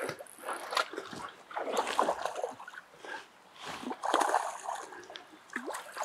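Irregular water splashes from a hooked Atlantic salmon grilse thrashing at the surface in shallow water as it is brought to the landing net.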